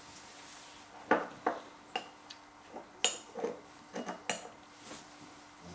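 A metal teaspoon clinking against ceramic bowls while sauce is spooned out: a string of light, irregular taps, the two sharpest about three and four seconds in.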